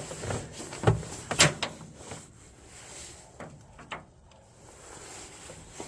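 Cable and small connector parts being handled: a few separate clicks and knocks, the loudest about a second and a second and a half in, with fainter ones later.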